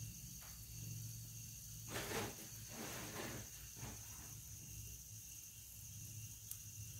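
Dry red chillies, cumin, fenugreek, black pepper and mustard seeds roasting in a spoonful of oil in an aluminium kadai: faint crackles, bunched about two to four seconds in, over a steady low hum and a thin high tone.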